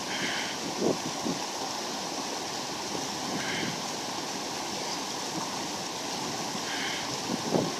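A creek rushing steadily, with a man's heavy breaths heard three times, a few seconds apart, from someone winded after crossing it. Two low thumps stand out, about a second in and near the end.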